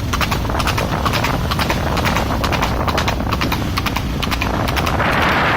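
A horse's hooves clip-clopping in quick, uneven hoofbeats. About five seconds in, a steady rushing noise rises under them.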